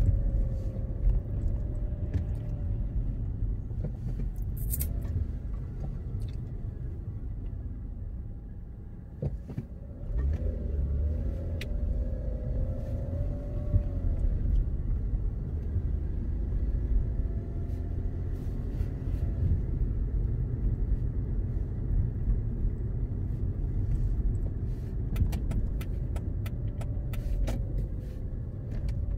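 A car driving at low speed, heard from inside the cabin: steady low engine and road rumble that drops for a moment about nine seconds in, then picks up again.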